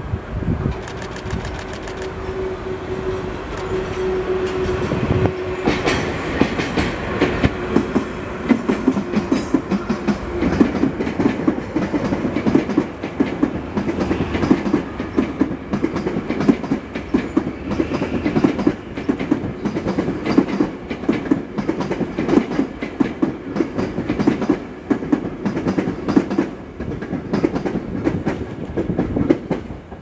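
DE10 diesel-hydraulic locomotive passing with a steady engine hum. It is followed by the new Tokyu 7000-series electric cars it is towing, whose wheels clatter rapidly over the rail joints for most of the time, easing off near the end.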